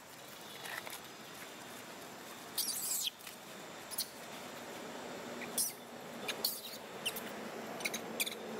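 Baby macaque giving short, high-pitched squeaks: a longer squeal about a third of the way in, then several brief ones.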